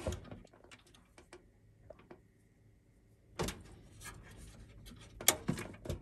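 Plastic clicks and knocks of a DDR3 RAM module being pressed into its motherboard slot in a desktop tower. A cluster of clicks comes about three and a half seconds in, and the loudest, sharpest click comes near the end as the module seats under the slot's clip.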